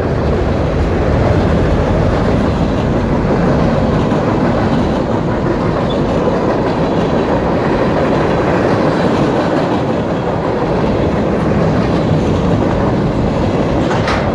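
CSX mixed freight train's cars rolling past: steady rumble and clatter of steel wheels on the rails, with one brief sharper sound near the end.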